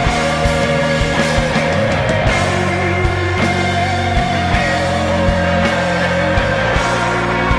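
Indie rock band playing a song: drum kit, electric guitar and bass guitar together in a dense, steady passage with a regular drum beat.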